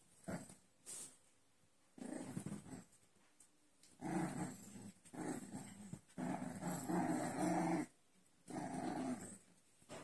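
American Bully puppies growling as they play together, in several separate bursts; the longest runs for nearly two seconds past the middle.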